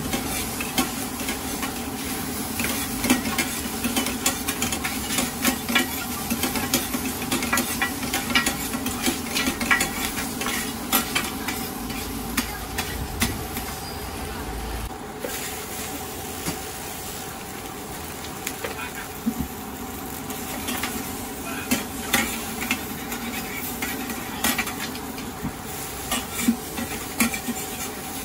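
Stir-frying in a wok: a metal spatula scraping and clinking against the wok in quick irregular strokes over the sizzle of food in hot oil, with a steady hum underneath. The strokes thin out for a few seconds in the middle, then pick up again.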